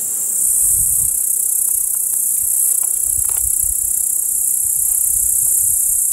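Meadow insects chirring in the tall summer grass: a dense, steady, high-pitched hiss that never breaks, with a low irregular rumble underneath.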